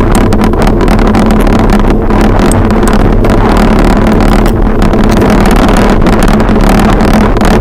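Loud, steady wind buffeting the microphone of an action camera mounted on a bicycle descending at about 19 mph, mixed with tyre and road rumble, with a steady low hum running underneath.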